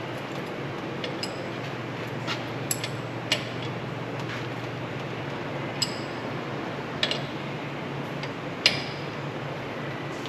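Sharp metal clinks and taps of hand tools against a Warthog sewer-jetter nozzle as it is taken apart, about ten scattered strikes with the loudest near the end. A steady low hum runs underneath.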